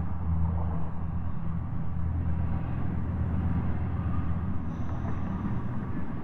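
Steady low rumble of a running engine, with a few low droning tones.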